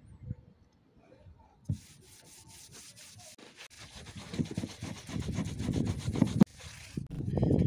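Something being rubbed or scraped by hand in quick repeated strokes, growing louder and then stopping abruptly. A single knock comes just before it starts.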